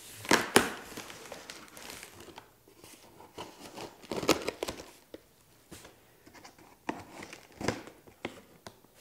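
Brown packing tape being picked at and ripped off a cardboard box, in several short tearing, crinkling bursts with quieter cardboard rustling between.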